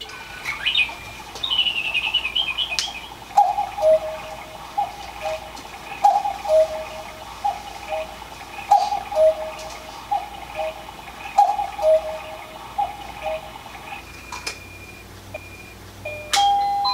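Battery quartz cuckoo clock giving its electronic cuckoo call, a two-note falling "cuck-oo" repeated about every second and a half for some ten seconds, with sharp clicks among the calls, as it strikes the hour. Near the end a short electronic tune starts.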